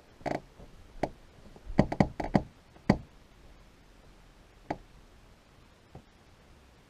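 A run of sharp knocks and clicks: one short rattle at the start, a quick cluster of about five knocks between one and three seconds in, then a single knock near the middle and a faint one near the end.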